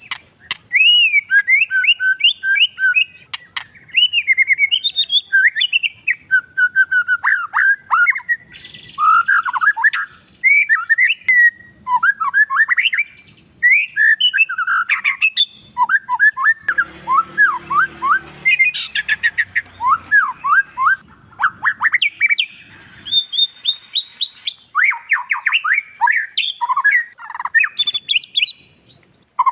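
Oriental magpie-robin (kacer) singing a fast, varied run of whistled and chirping phrases with short pauses between them. This is the kind of 'pancingan' song played to provoke other kacer into singing.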